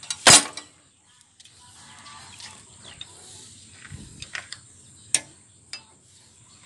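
Hand tools clicking and knocking against metal at a small diesel engine: one loud knock just after the start, then scattered light clicks.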